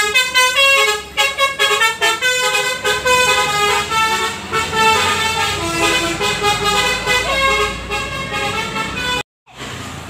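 A 168 Trans bus's basuri, a multi-note musical telolet air horn, plays a fast tune of quickly changing notes, then cuts off suddenly about nine seconds in.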